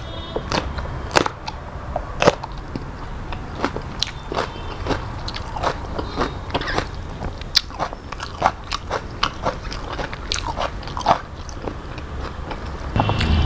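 Close-miked eating: crunchy bites into a raw green chili pepper and chewing, heard as a run of sharp, irregular crunches.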